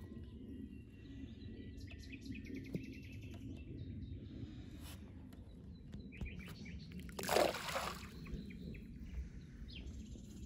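Birds chirping and trilling faintly by a river, over a steady low rumble. A brief louder noise stands out about seven seconds in.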